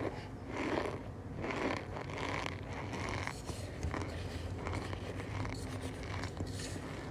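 Cornstarch being squeezed and crushed by hand, giving a squeaky, crunchy creak with each squeeze, about once a second.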